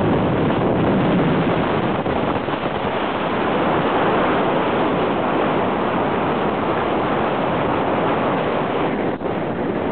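Steady rush of wind buffeting the microphone of a camera riding along on a moving road bike.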